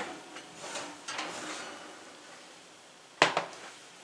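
Kitchen dishes and utensils being handled on a countertop: light clinks and scrapes, then one sharp knock a little after three seconds, followed by a couple of smaller clicks.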